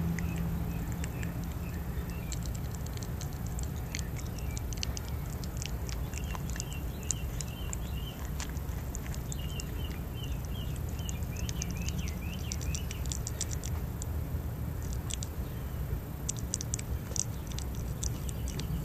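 Mexican prehensile-tailed porcupine chewing chunks of fruit and vegetables, with many crisp, irregular crunching clicks. Twice in the middle there is a brief run of short high chirps.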